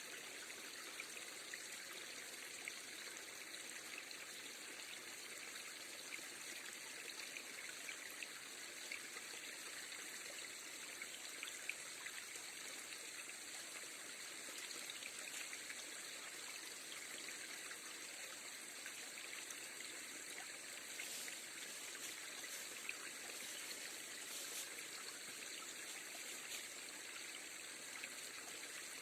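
River stream flowing and trickling: a steady, even rush of water with faint scattered ticks.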